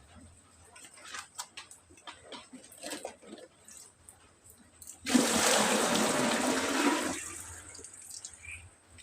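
Scattered drips and light taps of water, then a sudden rush of water about five seconds in that lasts about two seconds and fades away.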